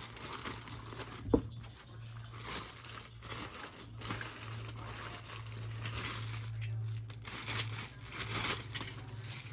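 Packaging being handled and pulled apart while a bicycle engine is lifted out of its box: irregular crinkling and rustling with scattered knocks, one sharp knock about a second in. A steady low hum runs underneath.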